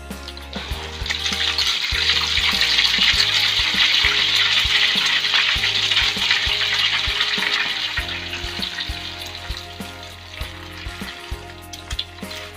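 Beaten egg poured into a wok of hot oil over skewered tapioca dough, frying with a loud sizzle that swells about a second in and dies down over the last few seconds.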